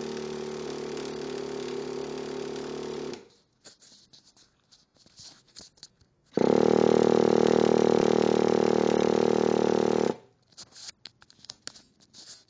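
Traxxas EZ-Start electric starter spinning over a nitro RC engine in two bursts: a steady whine that cuts off about three seconds in, then a louder one of about three and a half seconds that also cuts off abruptly, with light clicks between them. The engine does not fire: a no-start despite a new glow plug and fresh fuel.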